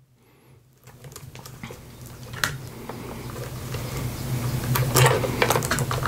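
Plastic 8-pin PCIe power connectors being handled and pushed against a graphics card's power sockets: rubbing and scraping with a few sharp clicks, most clearly twice. It starts almost silent and grows louder about a second in.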